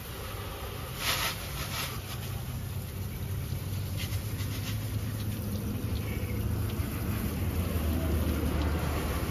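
Water from a garden hose spray nozzle splashing over a car's engine bay, rinsing off degreaser, with a short loud hiss about a second in. A steady low rumble runs underneath.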